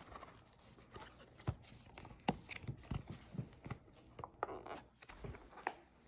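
Handling noise: scattered light clicks, taps and brief rustles as plastic blister-card packaging and the phone are picked up and moved about.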